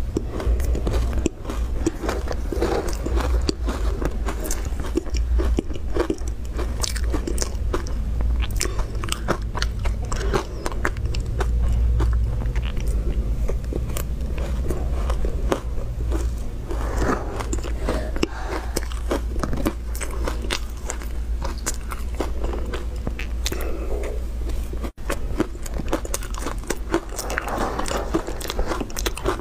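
Close-up chewing of soft, crumbly ice coated in milk powder: rapid, dense crackling crunches as it is bitten and chewed, mouthful after mouthful.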